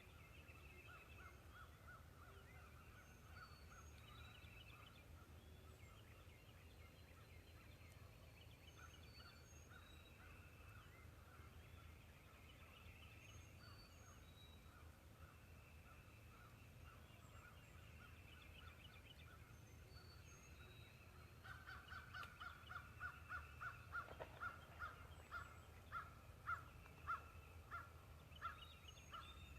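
Turkey yelps: faint pulsed calling at first, then from about three-quarters of the way in a louder run of yelps, about two a second. Faint high songbird chirps are scattered throughout.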